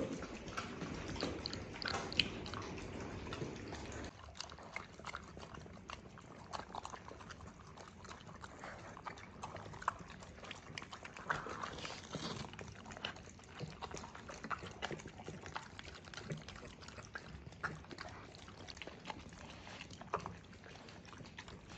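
Dogs licking and chewing wet food from plastic slow-feeder bowls and lick mats: wet lapping with many small clicks of tongues and teeth against the plastic, denser and louder for the first four seconds.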